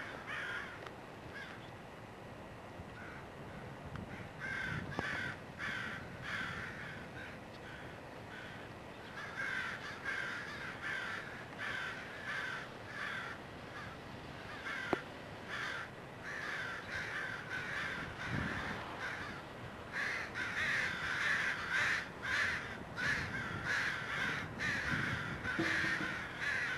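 Crows cawing over and over in ragged clusters of harsh calls. The calling gets busier and louder about three-quarters of the way through.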